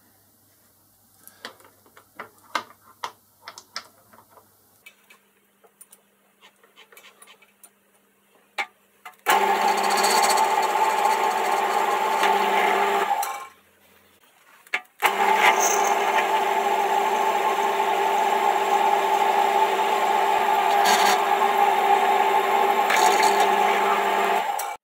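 Small clicks and taps of steel parts being handled and clamped in a vise, then a Boxford lathe running with an end mill cutting a steel block: a loud, steady machine whine with cutting noise that stops briefly and then runs again for about ten seconds.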